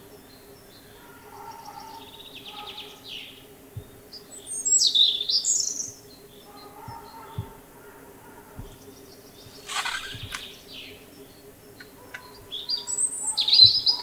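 European robin singing: short phrases of high, thin, quickly changing notes separated by pauses, the loudest phrases about five seconds in and near the end.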